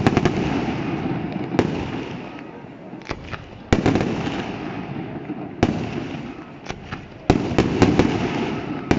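Fireworks bursting: sharp bangs every second or two, each followed by a rolling rumble that dies away, with a quick run of several bangs about three quarters of the way through.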